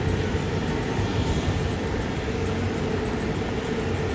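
Jet airliner engines running at taxi power: a steady rumble with a constant droning hum over an even hiss.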